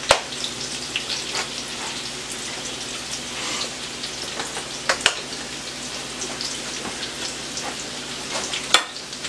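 Sheepshead fish pieces frying in hot oil in a skillet: a steady crackling sizzle. A few sharp clicks of metal tongs against the pan, near the start, about five seconds in and near the end.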